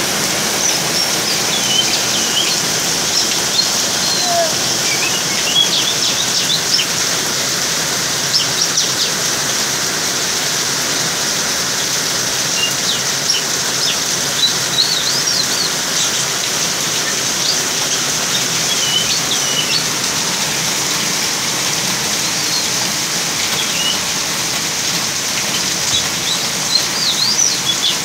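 Steady rain falling, with a juvenile oriental magpie-robin (kacer) giving short, scattered chirps and calls throughout.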